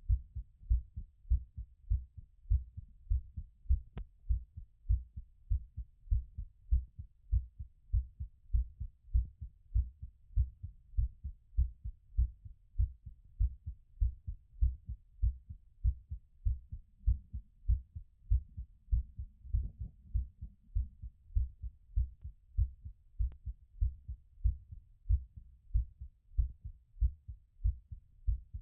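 Human heartbeat heard through a stethoscope, fast and regular at about two beats a second, as the heart recovers after exercise. A single click sounds about four seconds in.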